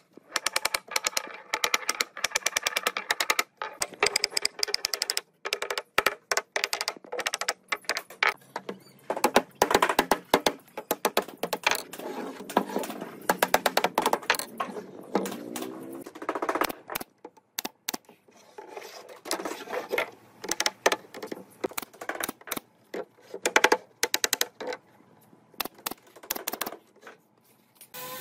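Wooden mallet tapping repeatedly on wooden strips, knocking the joints of a lattice frame together, in quick runs of sharp knocks with short pauses between them.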